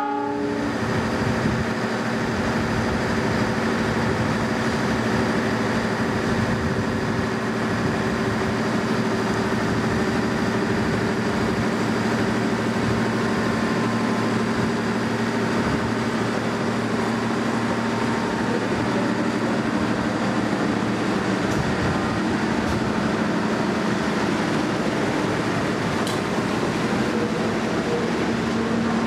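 A diesel-electric locomotive's engine runs steadily as it hauls a train of passenger coaches away, a constant drone with a steady low hum. A horn blast cuts off right at the start.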